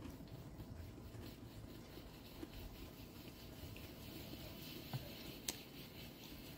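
A KitKat chocolate-covered wafer bar being eaten: faint chewing and mouth sounds, with two sharp crisp clicks about five seconds in, the loudest moments.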